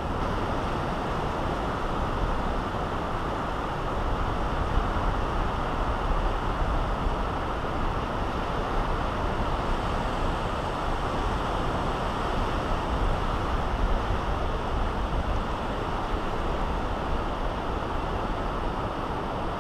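Steady wind rumbling on the microphone over surf washing up on the beach, a constant rushing noise with no speech.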